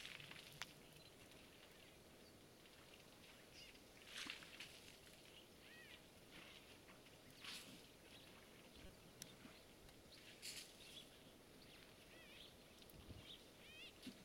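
Faint riverside ambience: small birds chirping over and over in short arched notes, with a few soft bursts of noise about every three seconds.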